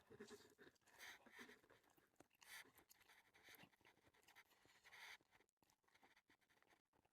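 Near silence, with a few faint, short breathy puffs and mouth sounds from someone eating.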